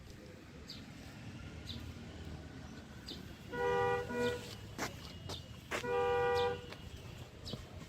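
Vehicle horn honking: a quick double toot about three and a half seconds in, then one longer blast about six seconds in, over a low steady rumble.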